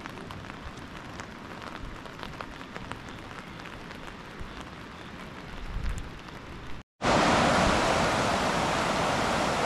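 Light rain falling, with faint scattered drop ticks. About seven seconds in it cuts off and gives way to a much louder, steady rushing of fast-flowing floodwater.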